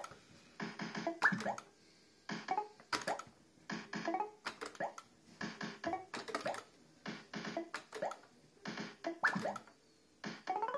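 Barcrest MPU5 fruit machine's electronic sound effects as it plays game after game: a run of synthesised bleeps and rising chirps with each reel spin, repeating about every second and a half.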